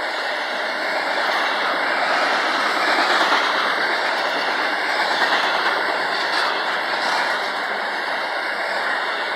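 Intermodal freight train's cars rolling past, a steady noise of steel wheels running on rail with some clickety-clack.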